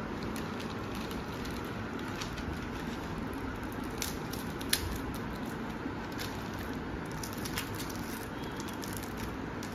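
Clear plastic packet crinkling, with scattered clicks and one sharper click as it is handled and a small remote is pulled out, over a steady background hiss.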